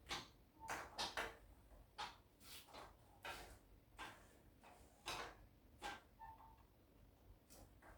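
Small plastic parts of a Gundam model kit being handled and pressed together during assembly: a string of light, irregular clicks and snaps, some in quick pairs.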